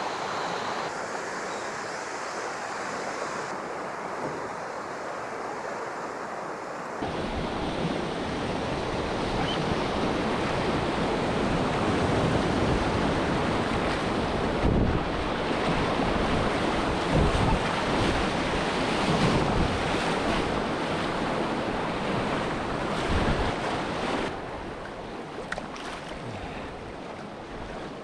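Whitewater rapids of a swollen river rushing steadily, heard from close on the water, with wind buffeting the microphone. The sound gets louder from about seven seconds in and eases again near the end.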